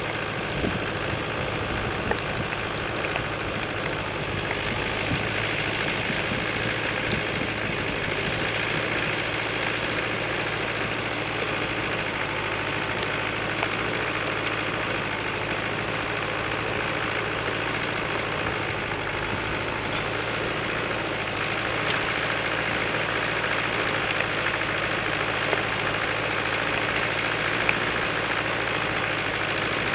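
International Harvester 250D tractor's diesel engine running steadily at a slow, even speed, with a few faint clicks over it.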